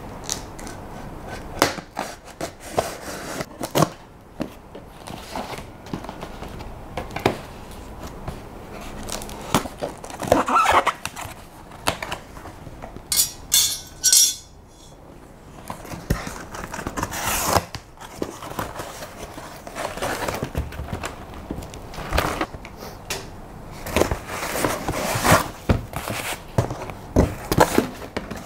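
Cardboard shipping box being cut open and unpacked: blades scraping and slicing at the packing tape, flaps and packing rustling, and scattered knocks as the box and smaller boxes inside are handled, with a brief sharp rasp about halfway through.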